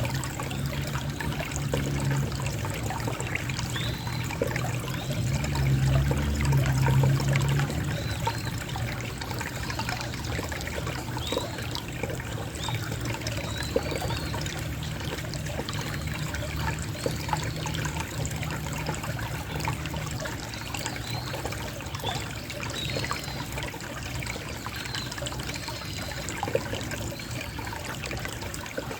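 Small stream of water trickling steadily. A low rumble swells about five to eight seconds in, and faint high chirps come and go.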